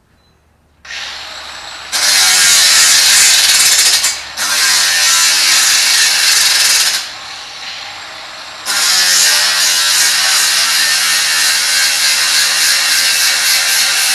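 Ryobi 18V cordless angle grinder with a cutting wheel spinning up about a second in, then cutting under load in three long passes, its whine dropping in pitch as the wheel bites, with the motor running free and quieter between cuts.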